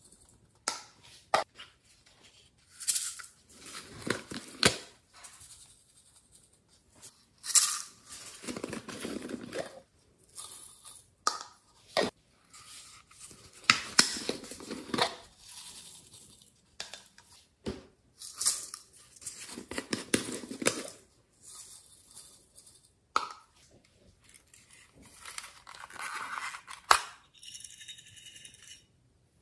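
Hands handling small plastic slime tubs, squeezing clay out of them and shaking glitter and sequins onto a tray of slime: irregular rustling, scraping and crinkling with sharp clicks, broken by short pauses.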